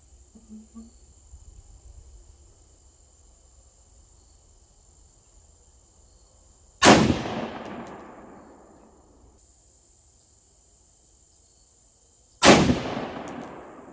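Two rifle shots from a 6.5 Grendel rifle firing Wolf 100-grain ammunition, about five and a half seconds apart, each with a long echo that fades over about two seconds. The shots are sighting-in shots, fired to check the scope's elevation adjustment.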